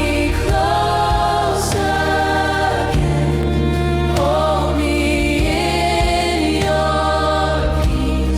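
Background acoustic worship song: long held vocal notes over a steady low bass.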